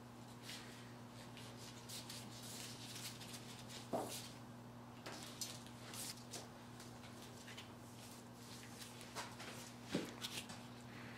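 Quiet handling noises: faint rustling and small clicks as a rubber wiper refill and its plastic packaging are handled, with two sharper taps about four and ten seconds in, over a steady low electrical hum.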